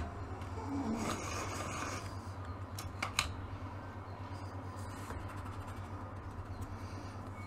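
Quiet handling of a hand-crank pencil sharpener as a colored pencil is drawn back out of it, with two sharp clicks close together about three seconds in, over a steady low hum.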